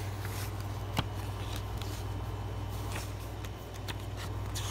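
Pages of a thin paper booklet being handled and turned: faint paper rustles and one sharp click about a second in, over a steady low hum.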